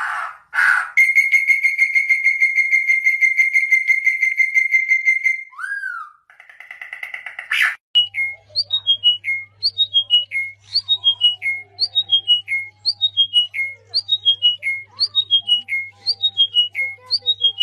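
Bird-like whistled calls. First a long, fast trill held on one high pitch, then a short downward slur and a pulsing passage. From about halfway, a phrase of four or five notes stepping down in pitch repeats about once a second over a low steady hum.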